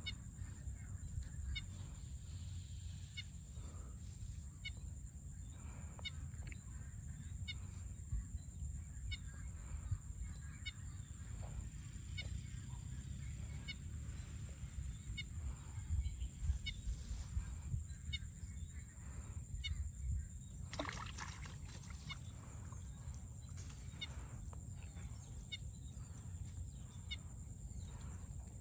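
Domestic fowl calling, geese honking among them, over a steady high-pitched hiss and a low rumble, with a brief burst of noise about three-quarters of the way through.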